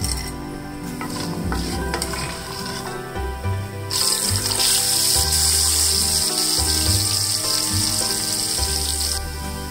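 Sliced onions sizzling loudly as they go into hot oil over tempering spices and dal. The sizzle starts suddenly about four seconds in and stops shortly before the end, over background music with a steady bass beat.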